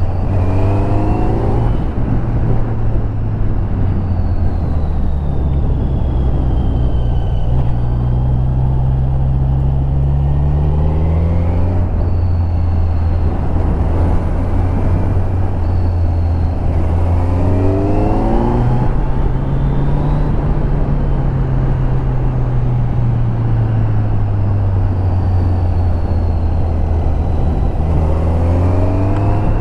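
Kawasaki Z900's inline-four engine on its stock exhaust, heard on board while riding. The engine note climbs under acceleration and drops back again about four times, with quick rising whines as it revs up.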